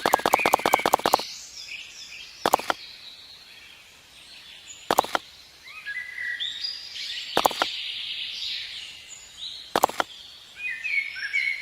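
Small birds chirping in short, stepped high notes. Sharp single clicks come about every two and a half seconds, and a rapid even ticking stops about a second in.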